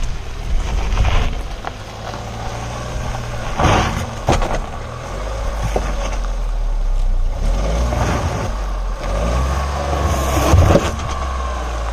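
Tata Nexon's 1.2-litre three-cylinder turbo-petrol engine pulling under load up a steep, stony off-road climb. Sharp knocks come about one, four and ten and a half seconds in, the last the loudest, as the car bumps over rocks.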